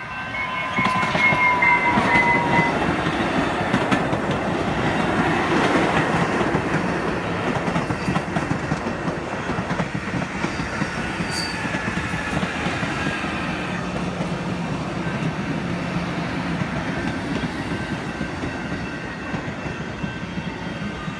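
Bombardier MR-90 electric multiple-unit commuter train passing close by: a steady rumble and clatter of wheels on the rails, loudest in the first few seconds. A high tone drops in pitch as the lead car goes past.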